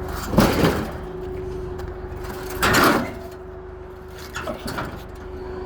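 A scrap air-conditioning unit scraping and sliding across a trailer as it is loaded, in two loud rasps about half a second and three seconds in and a weaker one near the end, over a steady engine hum.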